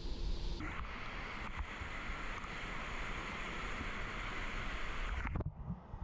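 Water lapping and sloshing against a waterproof camera held half-submerged at the surface of a shallow lazy river, with a low rumble. A steady rushing hiss of water starts about half a second in and cuts off suddenly near the end.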